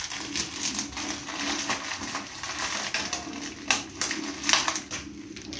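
Irregular clicks, taps and rustles of kitchen utensils and steel bowls being handled, with a faint steady hum underneath.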